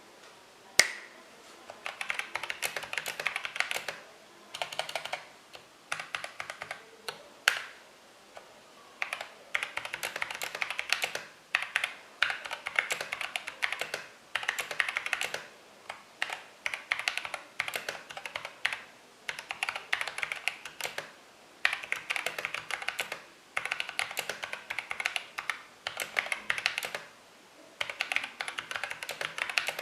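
Typing on a mechanical keyboard with lubed Outemu Sky switches and MT3-profile PBT keycaps: rapid keystrokes in runs of a few seconds, broken by short pauses, with a few single harder strikes in the first several seconds.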